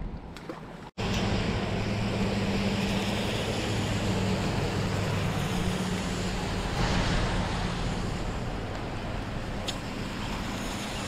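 Steady hiss of heavy rain falling on the lake and the boat, with a low steady hum beneath it; it begins abruptly about a second in after a short dropout.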